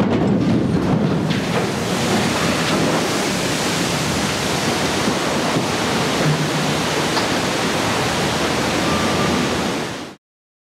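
Loud, steady rush of churning, surging water as a cargo ship is side-launched sideways into a canal and its launch wave breaks over the bank; it cuts off suddenly near the end.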